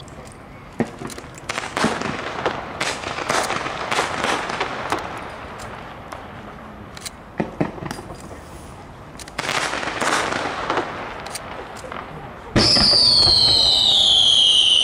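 Fireworks: scattered pops and bangs, then near the end a loud whistling firework cuts in abruptly, its shrill pitch sliding down.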